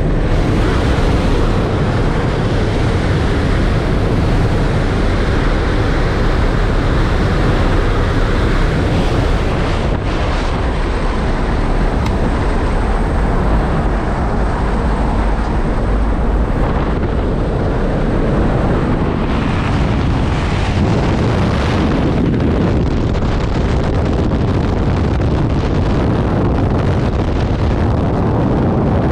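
Loud steady rush of wind and aircraft engine noise through the open door of a skydiving jump plane, giving way partway through to the rush of freefall wind over a helmet-mounted camera's microphone after the exit.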